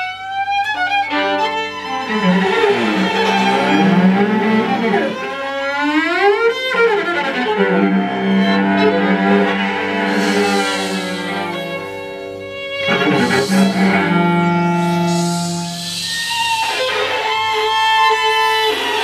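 Instrumental music on bowed strings: several notes held at once in low and high registers, with sliding pitch swoops around the middle.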